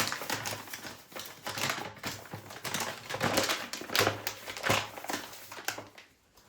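A busy, irregular run of clicks and knocks from small objects being handled, thinning out and stopping about six seconds in.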